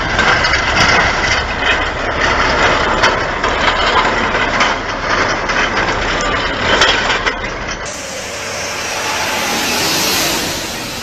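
A heavy vehicle's engine running under load with scattered knocks and clatter. About eight seconds in it cuts to a different recording: a steady hiss that swells and then fades.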